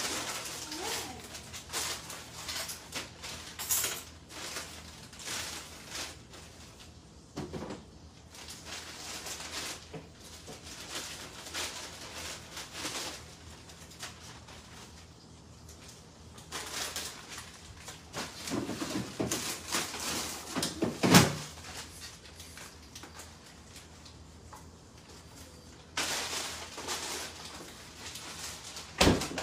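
Kitchen handling sounds: a bag rustling and food items being moved in and out of an open refrigerator, with scattered knocks and clicks of containers and shelves. The sharpest knock comes about two-thirds of the way through, with another near the end.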